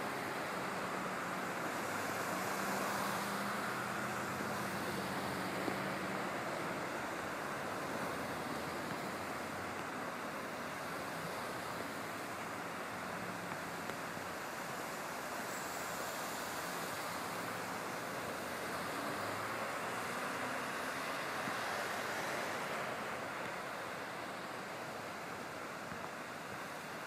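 Traffic driving through deep floodwater on a freeway, the tyres throwing up spray: a steady rushing of water with a low engine hum underneath.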